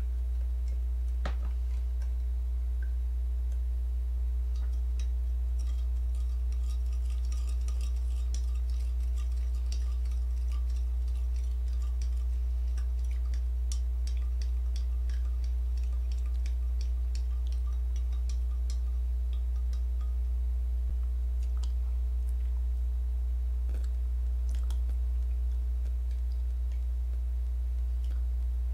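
A spoon stirring in a cup, clinking against its sides in many small, quick ticks through the middle of the stretch, then stopping. A steady low hum runs underneath and is the loudest sound throughout.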